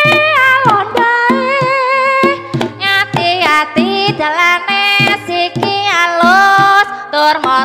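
Javanese Ponorogo-style gending with a voice singing long, wavering, sliding notes over sharp kendang drum strokes and steady gamelan tones.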